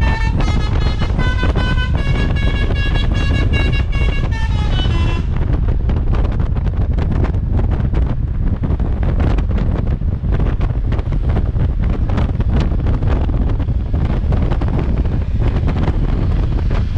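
A bus's Basuri telolet horn plays a quick melody of several notes that step up and down, then cuts off about five seconds in. After that, loud wind buffets the microphone over a low rumble.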